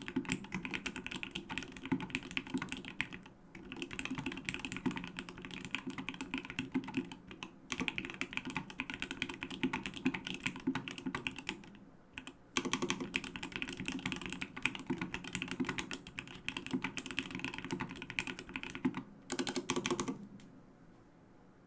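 Fast continuous typing on a Duck Orion V3 custom mechanical keyboard with an aluminium plate, Krytox-lubed Creamy Yellow switches and no sound-absorbing pad. The typing runs in stretches with brief pauses and stops near the end.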